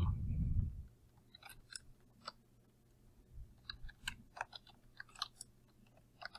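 Computer keyboard typing: faint, irregular key clicks, after a brief low rumble at the start.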